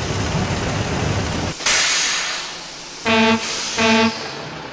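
Steam locomotive sound effects: a steady hiss, then a loud burst of escaping steam about one and a half seconds in that fades away, followed by two short toots of a steam whistle.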